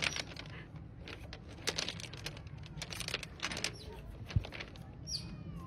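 Otter rolling on river pebbles, the stones clicking and clattering irregularly under it. A short high falling chirp comes about five seconds in.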